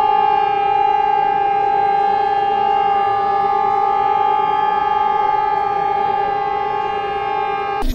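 A loud, steady, siren-like held tone with many overtones, unchanging in pitch, that cuts off abruptly near the end.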